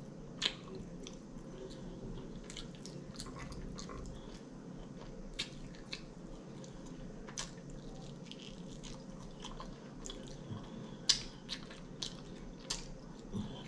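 Close-up eating sounds of air-fried chicken being chewed and picked from the bone by hand: scattered sharp mouth clicks and smacks, a few louder ones near the end, over a faint steady hum.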